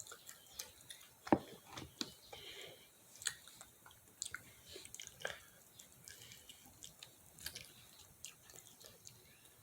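A person chewing and biting fried chicken close to the microphone: irregular short smacks and clicks, the loudest about a second in.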